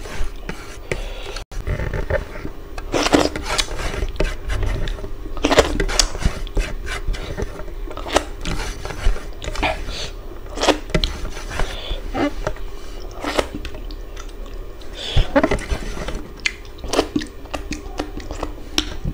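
Eating by hand: fingers scraping rice and curry across a plate, with chewing and lip-smacking in short, irregular clicks, and finger-licking near the end.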